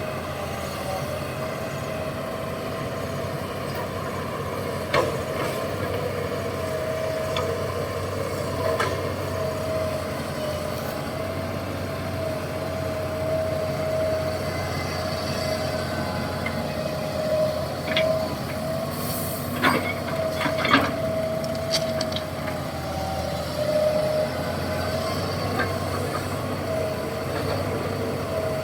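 Six-wheel dump truck's Hino H07D diesel running, heard from inside the cab, with a steady whine over the low engine rumble. Cab and body rattles and knocks come and go, with a few sharp knocks about two-thirds of the way through.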